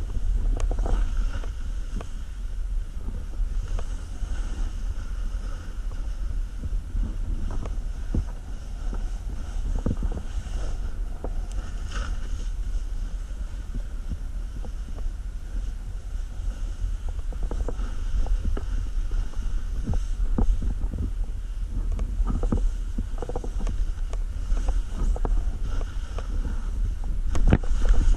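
Wind buffeting the microphone as a steady low rumble, over the hiss and scrape of skis or a snowboard sliding down a snowy run, with short scraping knocks now and then and a cluster of louder ones near the end.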